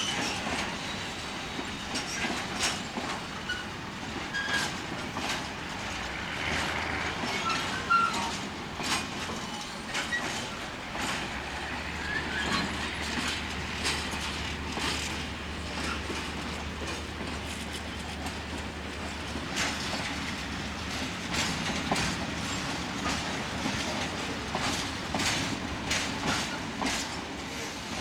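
Train running on the rails, its wheels clicking and clacking over rail joints in uneven runs, over a steady rumble. A low hum joins in about midway and drops away again.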